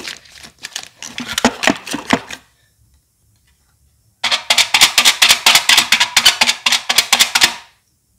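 Aluminium foil crinkling as it is pressed and smoothed over a hookah bowl. After a short gap comes a rapid, even run of sharp clicks, about six a second, as a metal pin punches holes through the stretched foil.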